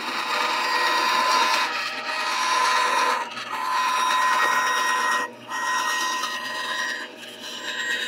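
Benchtop band saw running and cutting a 1-inch wooden board, a steady whine with the sawing noise on top. The cutting sound drops out briefly twice as the feed pauses.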